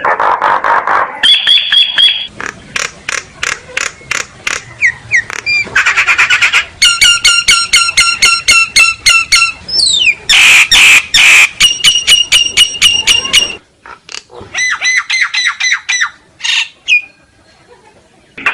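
Common myna calling loudly in a varied string of harsh rattles, clicks and whistled notes, the notes repeated in quick runs. This is the flock-gathering call used to lure mynas. The calling breaks off briefly about two-thirds of the way through and again near the end.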